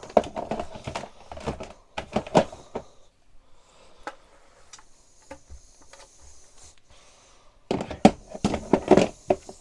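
Screwdriver bits being chucked back into the plastic top compartment of a Dewalt TSTAK tool box: clattering knocks and rattles in the first three seconds, a quieter stretch, then another burst of clatter near the end.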